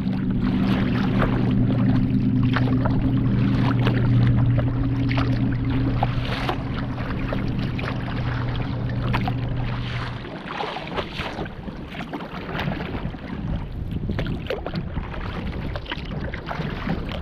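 Choppy lake water slapping and splashing against a kayak's hull as it moves through wind-driven waves, with wind on the microphone. A steady low hum runs underneath and stops suddenly about two-thirds of the way through.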